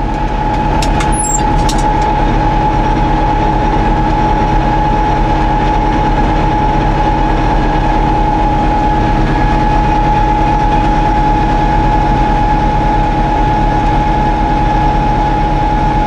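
Tractor engine and John Deere 535 round baler running steadily in the field, with a steady whine over the engine drone. A few brief clicks come about a second in.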